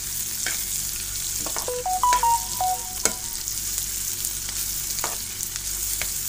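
Onions, green chillies, garlic and ginger sizzling in hot oil in a metal frying pan while a spatula stirs them, with sharp scraping clicks of the spatula against the pan. A brief run of short pitched notes sounds about two seconds in.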